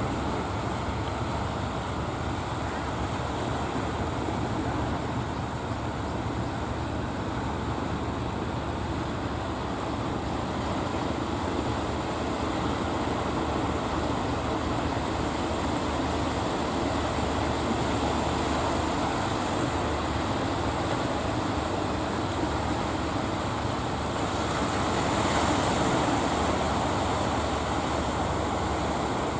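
Engines of wooden fishing boats running through choppy sea, a steady low rumble under the wash of waves and bow spray, which swells briefly near the end.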